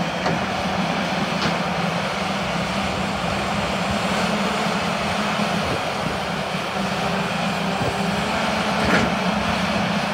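Sany SY335C hydraulic excavator's diesel engine running steadily with a constant low hum as the boom and arm are worked, with a short knock about nine seconds in.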